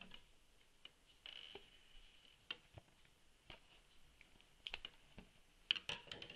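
Scissors and hands working open a cardboard trading-card box: scattered light clicks and snips, a short scraping hiss about a second in, and a cluster of louder clicks near the end.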